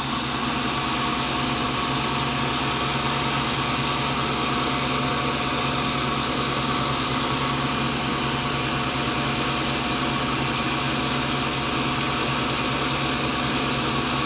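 Steady machinery hum from a running electric motor, with several fixed tones over a constant hiss that holds an even level throughout.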